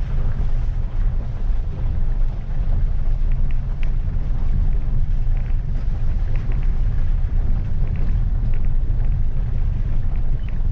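Maruti Suzuki Ignis heard from inside the cabin, pulling along a wet, rough dirt road in first and then second gear: a steady low rumble of engine and tyres, with scattered faint ticks.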